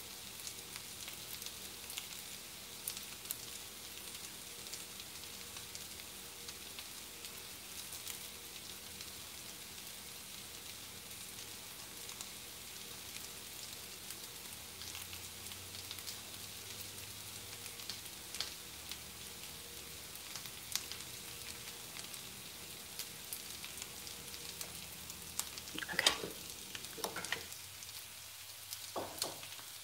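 Food frying in a skillet on the stovetop: a steady sizzle with scattered crackles and pops. A few louder clinks and knocks come near the end.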